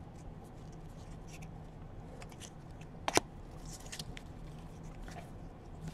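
Faint sliding and ticking of glossy football trading cards being flipped through by hand, with one sharper click about three seconds in.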